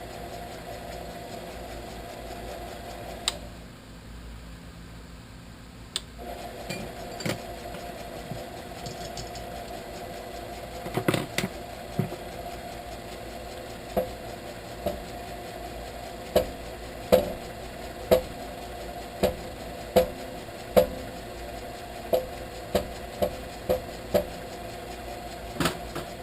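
Milling machine spindle motor running with a steady hum; it stops about three seconds in and starts again a few seconds later. Over the second run, sharp clicks come roughly once a second.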